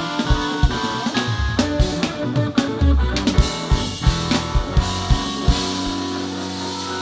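Live rock band (electric guitar, bass guitar, keyboards and drum kit) playing an instrumental passage with busy drum hits. About six seconds in the drums stop and held chords ring on.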